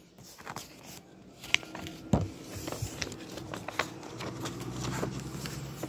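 Paper being handled and rustled by hand, with several sharp taps and clicks, the loudest about two seconds in.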